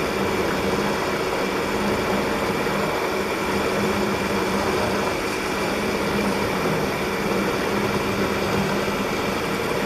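Vertical milling machine running steadily, its end mill cutting a groove into a steel part, with a steady hum and a few held tones over the cutting noise.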